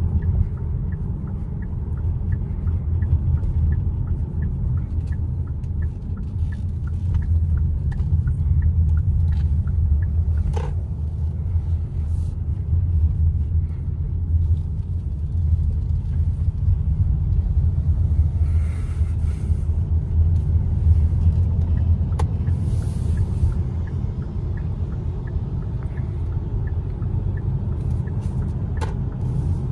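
Steady low road and tyre rumble heard inside the cabin of a Hyundai Palisade SUV as it drives along.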